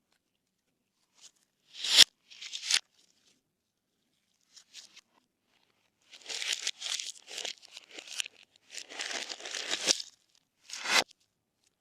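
Slime being handled and mixed, in short crackly, tearing bursts with pauses between; the longest stretch is near the end.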